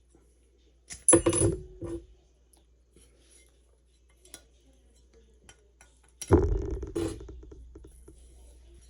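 Metal parts clanking together as they are handled and set down, in two short bursts: one about a second in and another, louder, around six seconds in that rings on briefly.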